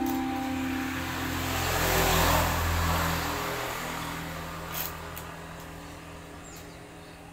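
A motor vehicle passing by, its noise swelling to its loudest about two seconds in and then slowly fading away, with a brief sharp click about five seconds in.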